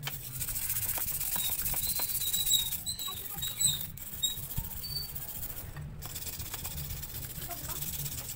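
Hand scrubbing of a car's intake manifold: a rasping hiss of the scrubbing tool on the metal, with small clicks and a few short high squeaks. It breaks off in brief pauses between strokes.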